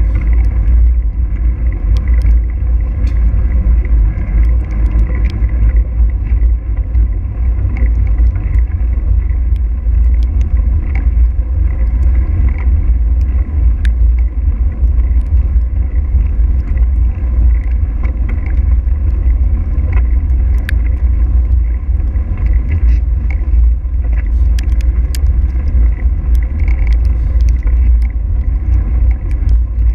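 Heavy wind rumble buffeting the microphone of a camera on a mountain bike coasting fast down a paved mountain road, with tyre and road noise beneath it and scattered sharp ticks.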